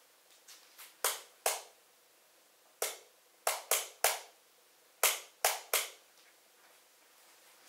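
Nine sharp, short impacts in uneven groups, each ringing out briefly in a small room.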